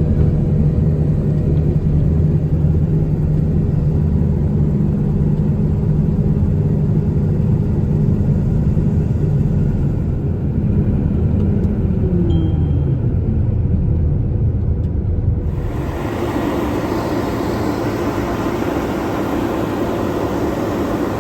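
A farm machine's engine runs steadily, then its pitch falls about twelve seconds in as it slows. Shortly after, the sound switches abruptly to a steadier, hissier running noise.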